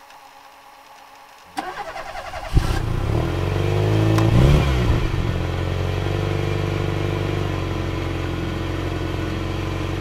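Car engine cranked briefly by the starter, catching about two and a half seconds in, revving once and settling into a steady idle.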